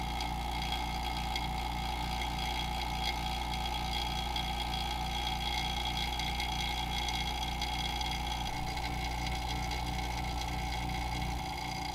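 Vacuum pump running steadily with a fast, pulsing hum, pulling a vacuum on a degassing chamber to draw the air bubbles out of liquid soft-plastic bait mix.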